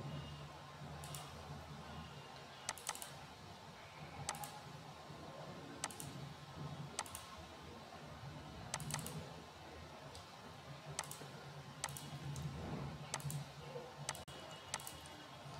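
Computer mouse clicking: about a dozen short, sharp clicks at irregular intervals, some in quick pairs like double-clicks, over a faint steady low hum.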